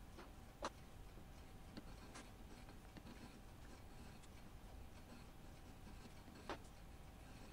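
Near silence with a faint steady hum and two short sharp clicks, one about half a second in and one near the end, from a quill-mounted shaping tool stroking through a slot in a cast iron workpiece.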